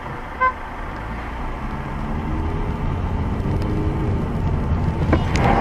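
A car driving in city traffic, heard from inside the cabin through a dashcam: steady engine and road noise. A short electronic beep comes about half a second in, and a few sharp clicks near the end.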